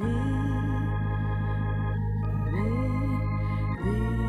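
Hammond organ playing held chords over a steady bass, moving from an A-flat major chord to a B-flat minor chord, with a new bass note coming in about four seconds in.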